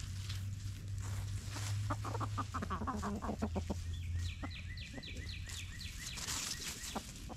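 Chickens clucking as they forage, with crackly scratching and rustling in dry leaves. A quick run of short, high, falling notes starts a little past halfway. A low steady hum underneath stops about the same time.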